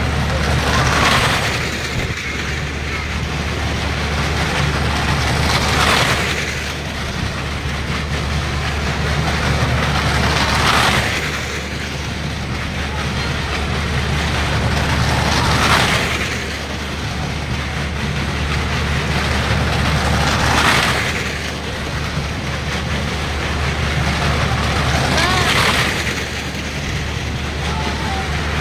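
Fairground ride noise that swells loudly about every five seconds as the ride comes round, over a steady low engine hum, with crowd voices mixed in.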